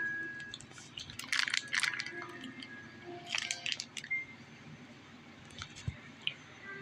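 Two short bursts of rustling, one about a second in and one just past three seconds, with scattered clicks, over faint plinking background music of single held notes.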